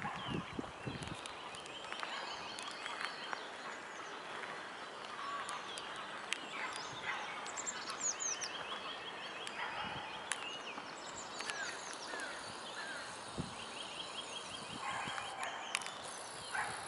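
Songbirds singing in the trees: many short chirps and several songs made of rapid repeated trill notes, over steady outdoor background noise.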